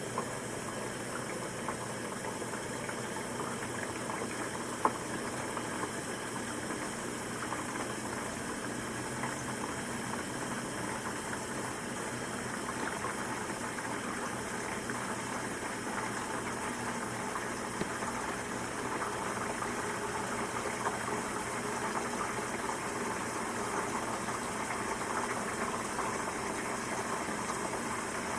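Dishwasher running: a steady motor hum under water sloshing and spraying inside the tub, with one small click about five seconds in. The water noise grows a little louder in the second half.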